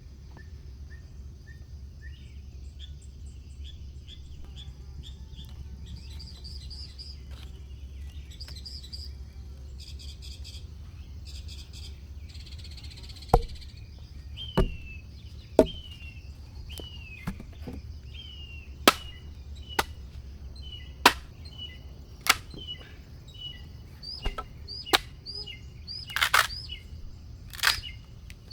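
Birds chirping in repeated short phrases, then, from about halfway, wood being chopped with a series of sharp, loud strikes roughly once a second.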